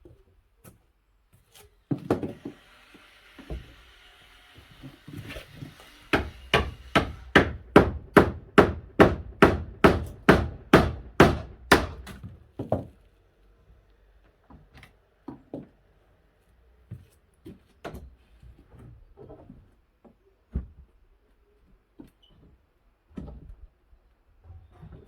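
Claw hammer driving an old chisel into a wooden shed panel to prise out rusted screws: a scraping of metal on wood, then a steady run of about fifteen hammer blows, roughly two and a half a second, followed by scattered lighter knocks.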